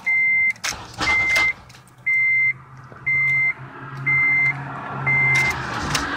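Car's dashboard warning chime beeping steadily about once a second at one high pitch, with keys clicking and rattling against the ignition switch.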